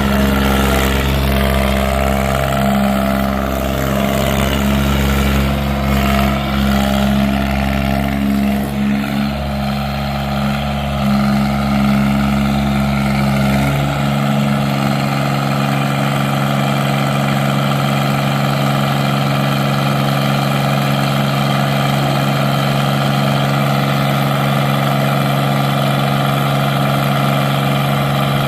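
Mighty Mac skid steer's engine running steadily. About halfway through, the deep low rumble drops away while the engine note carries on unchanged.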